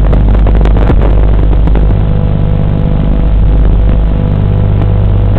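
An FPV quadcopter's motors and propellers buzzing steadily in flight, with a few short crackles in the first two seconds.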